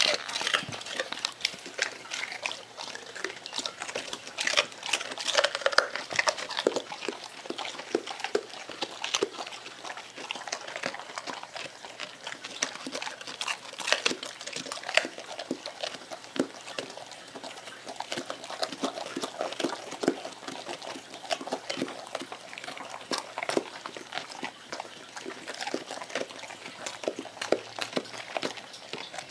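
Dogs chewing carrots: many irregular, short crunches with wet, slobbery mouth sounds.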